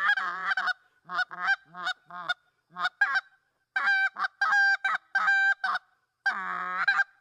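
Canada goose call blown by a skilled caller: a fast run of short clucks and honks, each note breaking sharply in pitch, then four longer honks about two a second, and one longer drawn-out call near the end.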